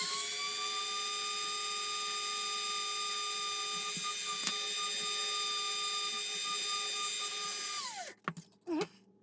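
Small electric hobby drill or rotary tool running at a steady high-pitched whine while drilling a hole for a light in a plastic model part. It spins up at the start and winds down about eight seconds in.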